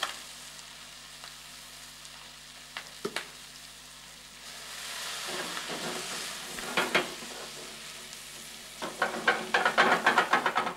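Lobster pieces sizzling in butter and oil in a sauté pan, with a couple of utensil taps about three seconds in. About four and a half seconds in the sizzle swells into a louder rushing hiss as the pan is flambéed with cognac, and near the end stirring brings dense crackling and scraping.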